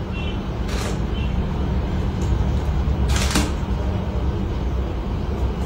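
Steady low hum of room background noise, with two brief rustles of a product package being handled, about a second in and again about three seconds in.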